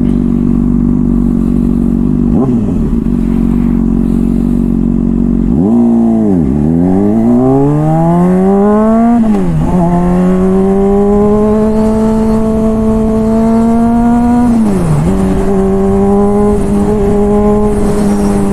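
Honda CBR600RR inline-four running through a Toce aftermarket exhaust under acceleration: the note climbs steeply for about four seconds, drops at a gear change, then holds steady while cruising. Another short dip comes a few seconds before the end.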